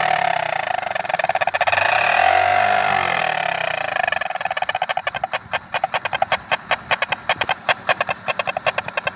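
Green plastic trumpet horn in a Hero Splendor motorcycle's silencer, sounded by the exhaust gas: a loud, steady horn tone while the engine runs up. About four seconds in, the tone breaks into rapid honking puffs, about six a second, one for each exhaust pulse as the engine drops back toward idle.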